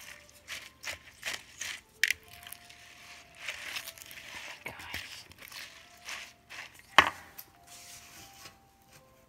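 A silicone spatula stirring and scraping bead-filled slime in a glass bowl: irregular crunching, squelching and clicking of the beads, with a sharp click about seven seconds in.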